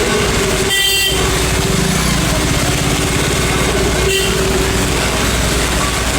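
Steady road-traffic noise of engines and wheels, with a vehicle horn honking about a second in and again more briefly about four seconds in.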